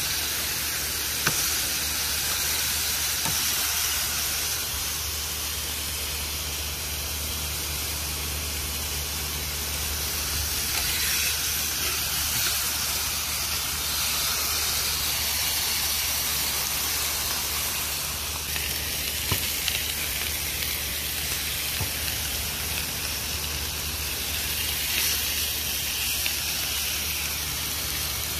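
Chicken pieces sizzling steadily on the hot iron cooktop of a wood-burning stove, with a few sharp clicks of metal tongs, one about a second in and a couple more later.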